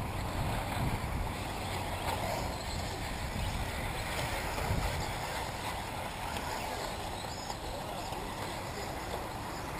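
1/8-scale electric RC buggies racing on a dirt track: a faint motor whine that briefly rises and falls about seven seconds in, over a steady rumble of wind on the microphone.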